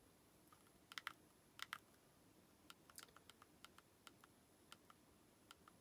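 Faint clicks of a Sony Walkman's small buttons being pressed while working through its menus: two double clicks, then a run of lighter single clicks, about two or three a second.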